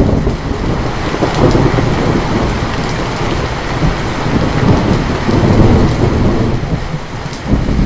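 Heavy rain falling steadily, with rolling thunder: a deep rumble breaks in suddenly at the start, rolls on, and swells again near the end.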